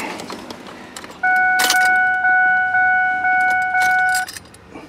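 Ford F250 key-in-ignition warning chime sounding as the key goes into the ignition, a steady tone pulsing about twice a second for about three seconds, over the jangle of the key ring. The chime sounding means the key-in switch circuit now makes contact after its broken tab and ignition switch contact were repaired, the fault behind code B1352.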